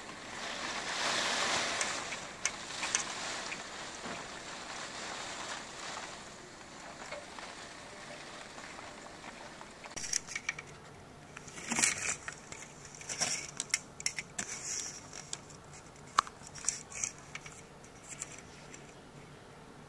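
Hurricane-force wind rushing over the microphone, with a gust swelling in the first couple of seconds before easing. From about halfway on, scattered sharp clicks and crackles cut through a lower rushing background.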